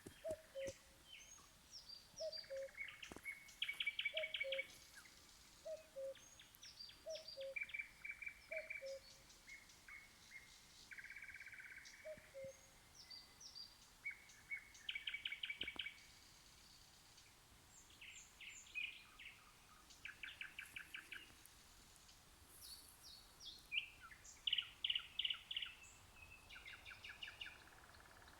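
Nightingale singing: varied phrases of fast repeated notes and trills with short pauses between them. A lower two-note call repeats underneath through the first dozen seconds.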